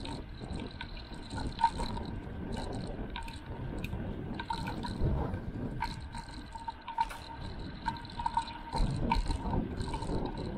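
Wind buffeting a handlebar-mounted action camera's microphone as a bicycle rides at about 25 to 30 km/h, with scattered clicks and light rattles from the bike and mount over the road surface.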